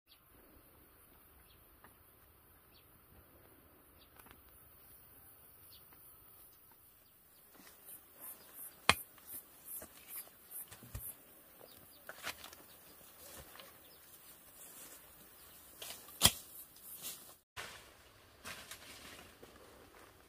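Leaves and plant stalks rustling and crackling as they are handled, after a quiet start; the crackles come in irregular runs with two sharp, loud snaps, one about nine seconds in and one about sixteen seconds in.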